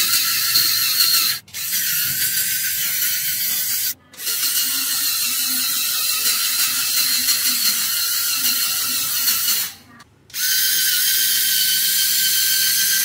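Small electric motors and plastic gears of a Lego Technic car running steadily, a high whirring, ratchety mechanical noise as the car drives up a steep slope. It breaks off briefly three times.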